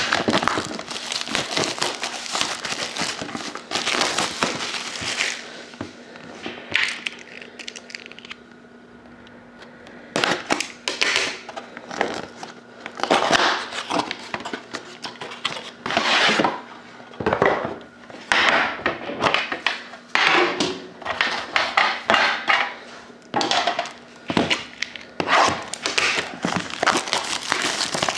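Plastic wrap crinkling and cardboard rustling and rubbing as a sealed hockey card box is unwrapped and opened by hand. The sound comes in irregular bursts, with a quieter lull about a third of the way through.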